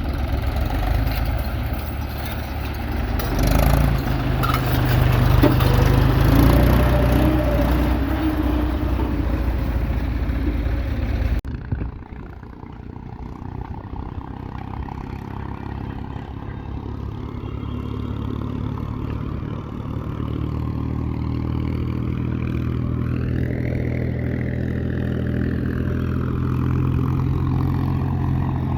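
Diesel engine of heavy earthmoving machinery running steadily. The sound changes abruptly about eleven seconds in, and a whine rises and falls in pitch near the end.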